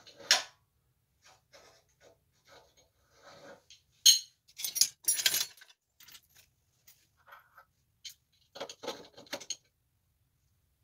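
Small metal parts and hand tools clinking and rattling as they are handled on a concrete floor: scattered light clinks, a sharp metallic clank about four seconds in followed by a second of rummaging, and another flurry of clinks near the end.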